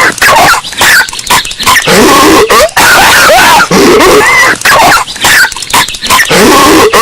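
Cartoon character Patrick Star coughing and hacking, boosted so loud that it clips into harsh distortion. The same coughing pattern repeats about every two seconds, as in a loop.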